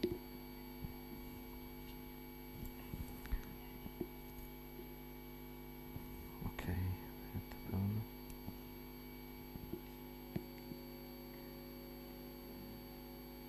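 Steady electrical mains hum, several steady tones at once, with a few faint clicks and two short low sounds about seven and eight seconds in.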